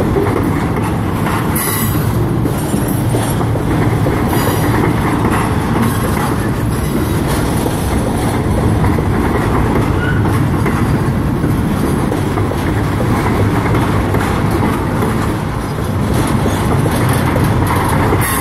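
CSX freight train's double-stack well cars rolling past, a loud, steady noise of steel wheels running on the rails.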